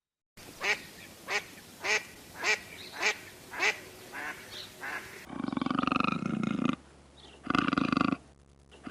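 About eight short bird calls in a steady series, then, after a cut a little past halfway, long, low bleating calls.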